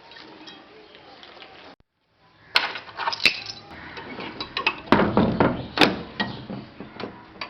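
A run of irregular sharp knocks and clinks, the strongest about halfway through, after a brief dead gap near the start.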